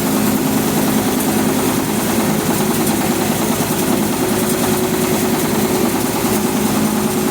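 An engine running at a steady speed, with a constant hiss over it.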